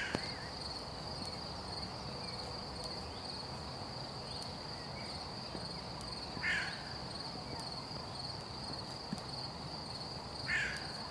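Steady high-pitched chirring of insects in the grass, with two short calls about six and a half and ten and a half seconds in.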